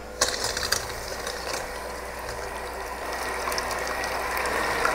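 Electric hand mixer running steadily, beating eggs with sugar and salt in a bowl. It starts right at the beginning and grows slowly louder.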